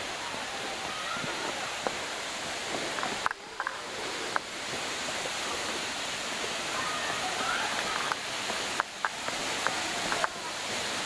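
Steady rushing of a rainforest waterfall and its river, growing slightly louder toward the end, with a few sharp clicks.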